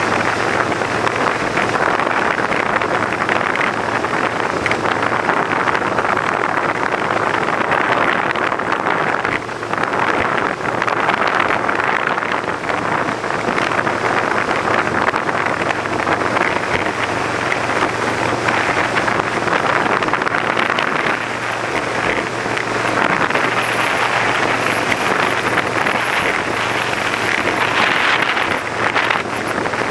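Wind rushing over the microphone on a moving boat, with the boat's engine running steadily underneath as a low hum.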